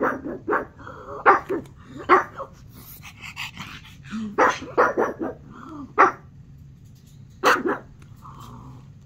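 A pug barking at the television: about ten short, sharp single barks at irregular intervals, some in quick pairs, with pauses of a second or more between.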